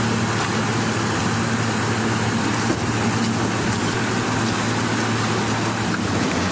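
Outboard motor running steadily at speed, with wind and water noise from the moving boat.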